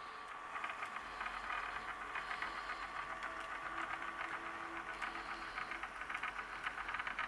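Bachmann HO-scale DD40AX model locomotive running with its sound decoder muted: a faint steady whir of the motor and gears with fast fine clicking, a low hum joining for a couple of seconds midway. The noise is mostly gear noise from its two large eight-wheel trucks rather than the motor.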